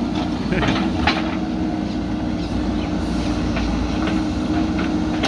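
JCB backhoe loader's diesel engine running steadily, with a few short knocks from the machine's work.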